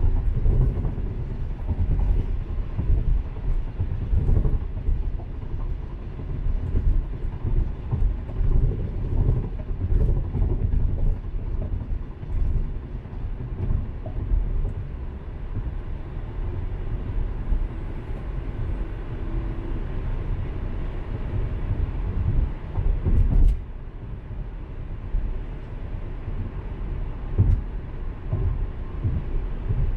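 A car driving, heard from inside the cabin: a continuous, uneven low rumble of tyres and engine on the road, with a sharp knock about three-quarters of the way through.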